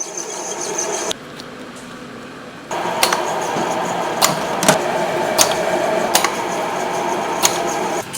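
Machinery running with a steady hum, broken by abrupt cuts, with sharp clicks every second or so in the longer stretch.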